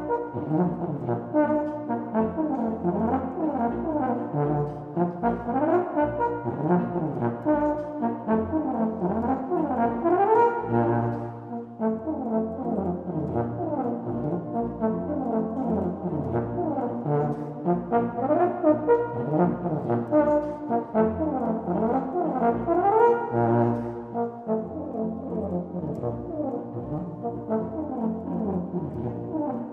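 Solo euphonium playing fast running passages that sweep up and down, accompanied by a brass band.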